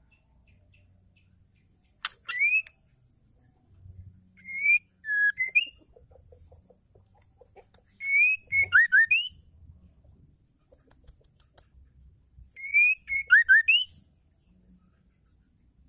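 White-rumped shama singing four short phrases of clear, rising whistled notes, each a second or so long, separated by pauses of a few seconds.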